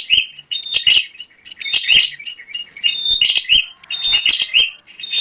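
Prinia (prenjak) singing loudly and rapidly: quick clusters of sharp, high chirps, with a couple of brief pauses between bursts.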